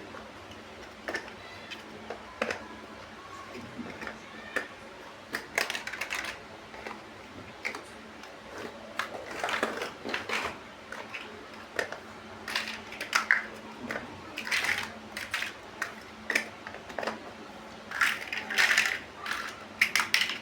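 Plastic building bricks being handled and pressed together: irregular clicks, taps and short clattering rustles.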